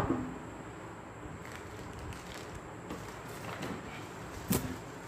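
Steady background hiss with a faint thin high whine, broken by a sharp click at the very start and a sharper knock about four and a half seconds in: small handling knocks as electronic parts are moved about.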